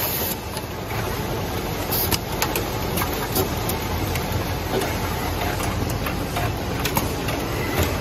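Automatic wire cutting, stripping, crimping and housing-insertion machine running: a steady mechanical hum broken by frequent short, sharp clicks and knocks from its working strokes.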